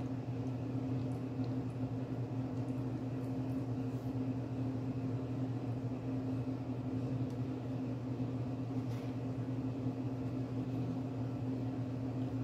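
Steady low electrical hum of a running fan or kitchen appliance, with a few faint clicks from eating and the spoon.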